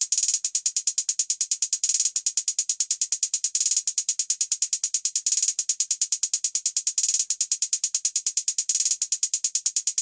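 Programmed trap hi-hat loop playing alone: quick, even closed hi-hat ticks about eight a second, broken every couple of seconds by faster rolls.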